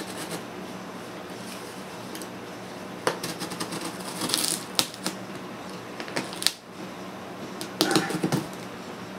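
Packing tape and paper labels being picked at and peeled off a cardboard box: scattered scratchy crackles and sharp clicks. Near the end, a knife scraping and cutting through the packing tape.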